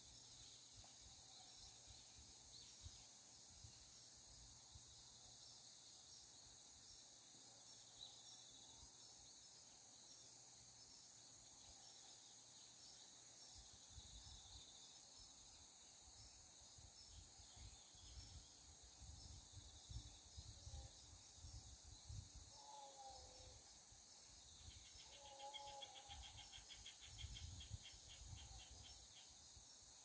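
Faint, steady high-pitched chorus of insects, with a few short bird calls and a fast pulsing insect trill in the second half. A low rumble comes and goes from about halfway through.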